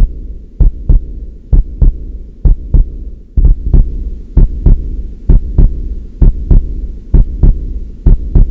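Heartbeat sound effect: paired lub-dub thumps about once a second over a steady low drone.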